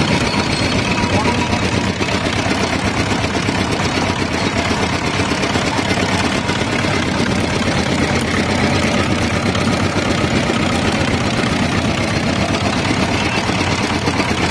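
Small engine running steadily, driving a belt-and-flywheel sugarcane crusher as cane stalks are fed through its rollers.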